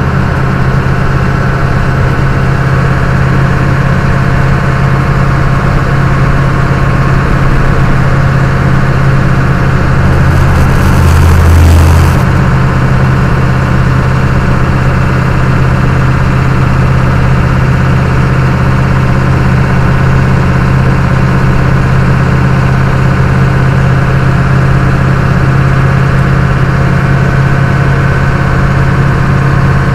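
Truck engine and road noise heard inside the cab at highway speed: a steady low drone. About ten seconds in, a louder rushing noise with a deeper rumble lasts about two seconds.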